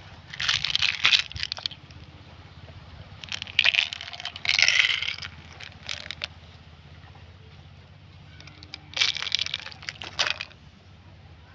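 Plastic candy wrappers crinkling and tearing as candies are unwrapped, in three separate bouts each a second or two long, over a low steady hum.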